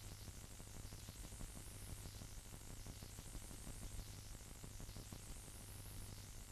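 Steady hiss with a low hum and faint crackle: playback noise from a CED videodisc player during a quiet, wordless stretch of the film's soundtrack.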